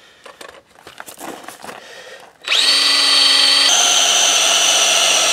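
DeWalt 20-volt cordless drill starting up about halfway through and running with a loud, steady whine as its long bit bores a pilot hole into a hard bowling ball. Before it starts there are light clicks and scraping.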